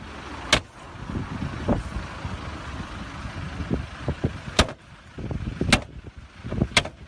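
Several sharp bangs a second or more apart: four strikes, three of them close together near the end, over the low rumble of a car engine and street noise.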